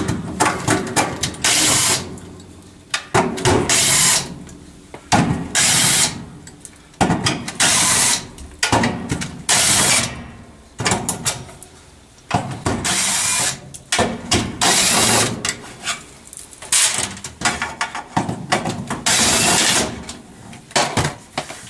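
Cordless drill/driver backing out screws from the sheet-metal inducer motor housing of a gas furnace. It runs in many short bursts, about one a second, with brief pauses as it moves from screw to screw.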